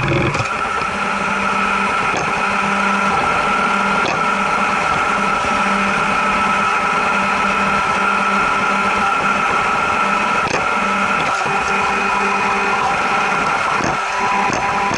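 Redmond RV-R300 robot vacuum running, heard from on top of the robot: a steady whir of its suction fan and brush motors with a high steady whine and a low hum that comes and goes, plus a few faint clicks.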